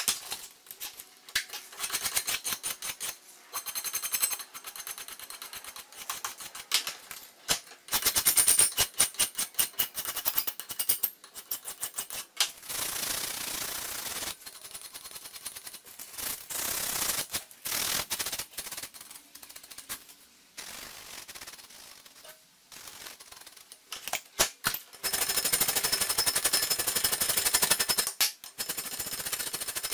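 Hand filing of a metal workpiece clamped in a bench vice: runs of rapid rasping file strokes across the metal edge, broken by brief pauses.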